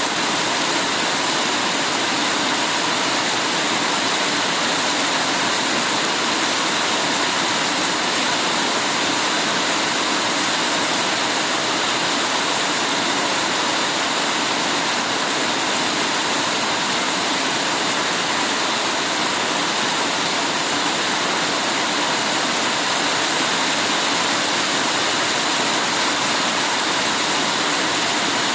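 Heavy rain falling in a steady, even downpour, a dense unbroken hiss with no separate drops standing out.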